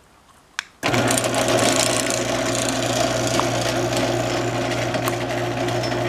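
Chain-drive garage door opener motor starting about a second in and running with a steady hum, driving the chain and trolley along the rail.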